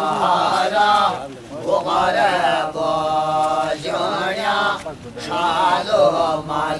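Devotional chanting in long, wavering sung phrases of one to two seconds, with short breaks between them.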